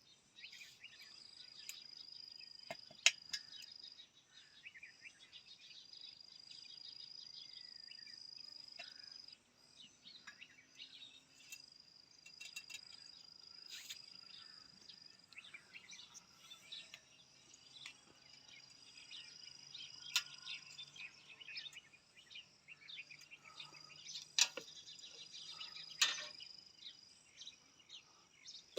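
Insects trilling in steady, high-pitched stretches of several seconds that stop and start again. Scattered small clicks run through it, with a few louder sharp knocks.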